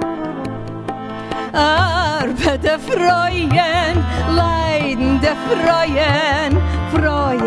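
Live band playing a Yiddish song: tabla strokes keep a rhythm under sustained chords, and about a second and a half in a lead melody with a wide, fast vibrato comes in over them.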